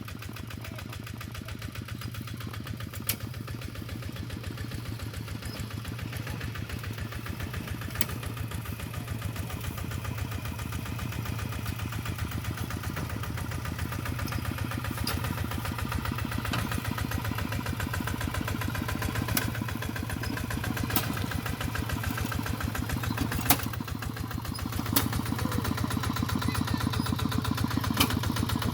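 Small engine running steadily with a fast, even firing pulse, gradually getting louder and stepping up about 25 seconds in. A few sharp clicks or knocks sound over it now and then.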